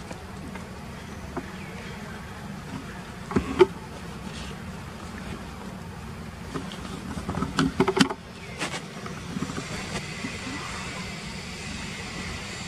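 Macaques wading and pawing in a shallow muddy puddle. A few short, sharp noises come about three and a half seconds in, and a cluster around seven to eight seconds in, over a steady low hum.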